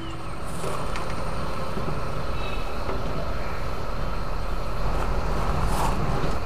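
Steady low rumbling background noise, with a few light clicks as a cassette mechanism is handled and set into a metal chassis.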